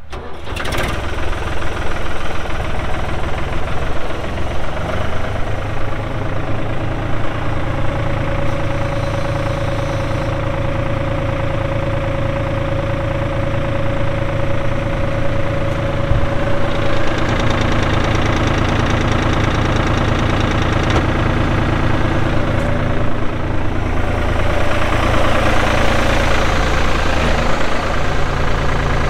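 1999 New Holland TN65S tractor's diesel engine running steadily. A steady whine joins it for several seconds in the middle.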